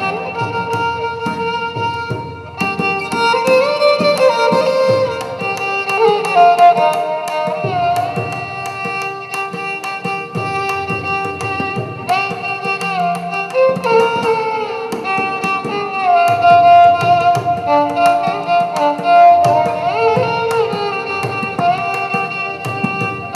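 Violin playing a film-song melody in Carnatic style, with sliding, ornamented notes, accompanied by a steady run of percussion strokes.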